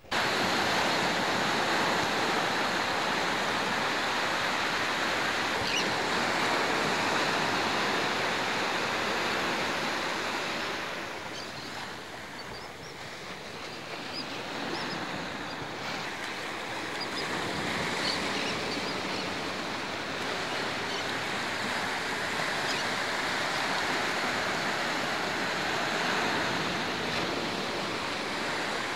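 Steady rushing of wind and surf, easing for a few seconds around the middle.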